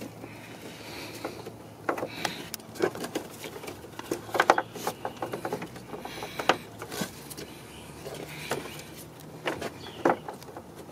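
Scattered plastic clicks, taps and rustling from gloved hands working a park light bulb socket back into its headlight housing behind the wheel-well liner.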